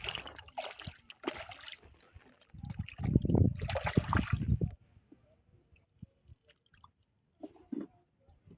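Water splashing and sloshing beside a small boat, loudest from about three to five seconds in, then only a few faint knocks.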